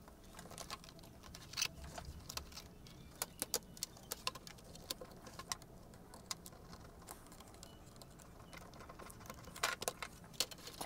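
Plastic snap clips on a laptop's bottom case clicking loose as the cover is pried open by hand and with a small screwdriver. Faint, irregular sharp clicks come in clusters.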